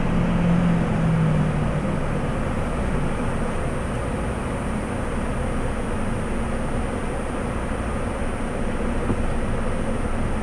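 Car idling with a steady rumble and hiss. A low hum fades out over the first two seconds, and a faint high whine comes in about three seconds in.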